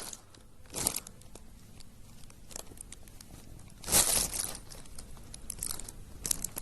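Plastic bag crinkling and rustling as a cat attacks it, in short bursts about a second in and around four seconds in, with busier crinkling near the end.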